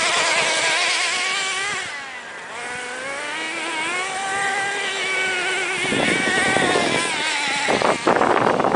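Redcat Volcano S30 RC monster truck running, its motor pitch rising and falling with the throttle and dipping about two seconds in. From about six seconds in, a rough crackling clatter joins it.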